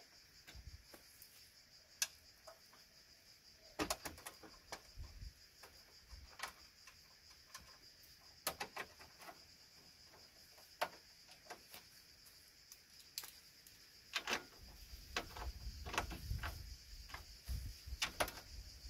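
Scattered sharp clicks and light knocks of a screwdriver and hands working on the plastic and metal parts at the front of a car, against a steady high insect chirring. Some low rumbling handling noise comes in near the end.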